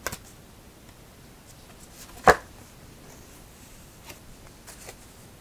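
Oracle cards being handled: a card drawn from the deck and laid down on the cloth-covered table, with one sharp card snap about two seconds in and a few faint ticks around it, otherwise quiet.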